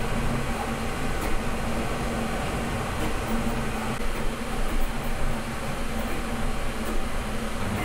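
Qidi Q1 Pro CoreXY 3D printer printing at high speed: its cooling fans whir steadily while the stepper motors hum in low tones that shift and come and go as the print head moves. It is heard with the front door open.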